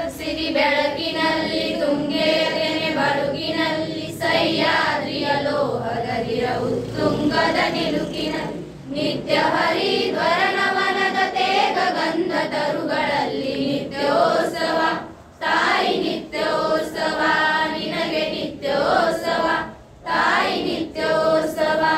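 A group of schoolgirls singing a song together in chorus, with a few short breaks between lines.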